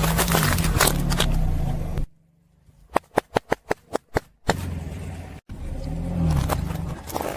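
Car engine running low with crackling and crunching as a tyre rolls over objects. About two seconds in, the sound cuts out and a quick run of sharp snaps follows. Then the engine and crunching return.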